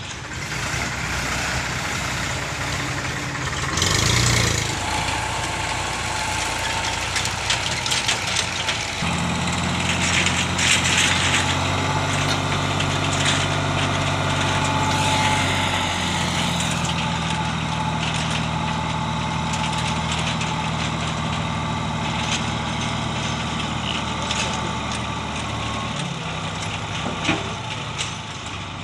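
Sonalika tractor's diesel engine running under load while its hydraulics tip the trailer to dump river sand. Its note steps up about a third of the way in and drops back near the end, with a louder rush of noise around four seconds in.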